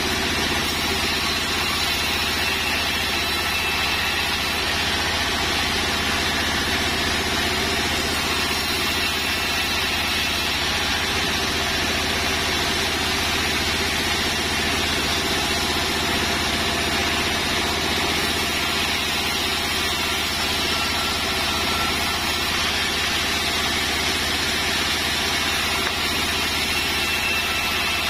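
Large 36-inch sawmill band saw running steadily while sengon timber is cut into beams: an even mechanical hum and blade noise with no breaks or changes.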